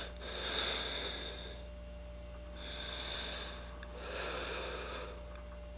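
Slow, heavy breathing: three long breaths in a row, over a steady low hum.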